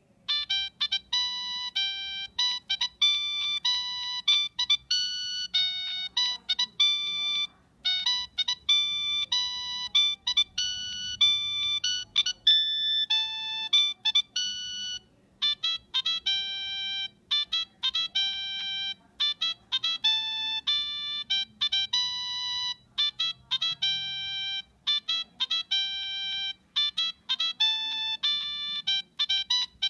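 Nokia 3586 mobile phone playing one of its built-in ringtones: a quick melody of short beeping notes, one note at a time, with brief pauses between phrases.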